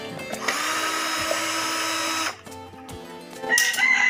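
Cordless drill-driver backing out a screw from a solar charge controller's metal chassis, running for about two seconds and then stopping. Near the end a rooster starts crowing loudly.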